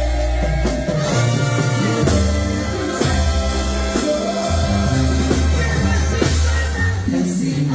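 Live banda sinaloense music: brass horns over a tuba bass line, with drums keeping the beat.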